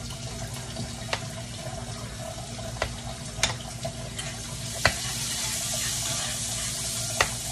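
A spoon stirring and mashing boiled potatoes in a bowl, knocking against the bowl in a few sharp clicks now and then, over a steady hiss that grows louder about halfway through.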